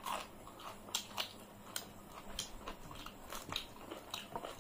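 Close-up chewing and wet mouth clicks of people eating rice and chicken curry by hand, with irregular sharp smacks and clicks throughout.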